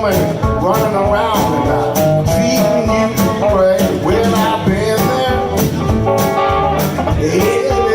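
Live blues band playing an instrumental passage: a guitar lead with bent, sliding notes over drums keeping a steady beat.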